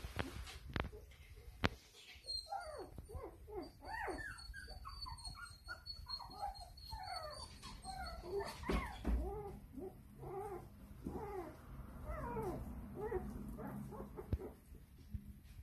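Young puppies whimpering and squealing: many short, overlapping squeaks that rise and fall in pitch, starting about two seconds in and dying away near the end. A few sharp knocks come in the first couple of seconds.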